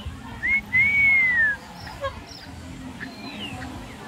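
A clear whistled call: a short rising note, then a longer note about a second long that arches and slides down at the end.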